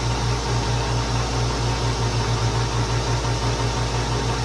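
Metal lathe running steadily during another light pass toward final size: a low hum that pulses rapidly and evenly, with a steady hiss over it.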